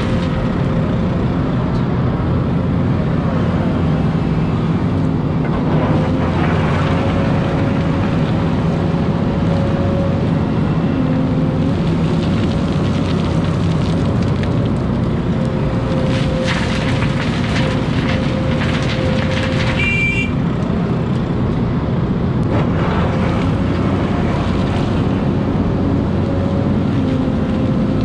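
Hidromek hydraulic excavator's diesel engine running steadily under working load, with a steady whine from the hydraulics. Soil spills and pours from the bucket now and then as it dumps and digs.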